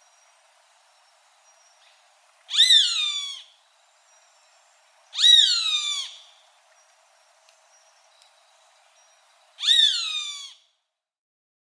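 Roadside hawk calling three times, a few seconds apart: each call is a drawn-out cry about a second long that rises briefly and then slides down in pitch.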